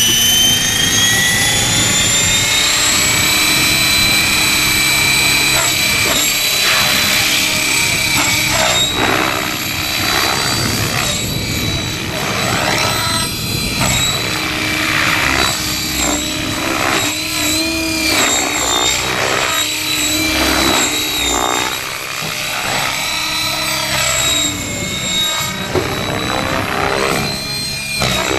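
Kasama Srimok radio-controlled model helicopter spooling up, its whine rising over the first few seconds, then flying with a steady high whine of motor and rotors that wavers in pitch as it manoeuvres.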